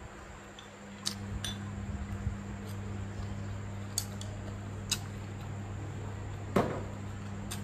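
Wooden chopsticks clicking against a porcelain rice bowl a handful of times while eating, with one slightly louder knock near the end, over a steady low hum.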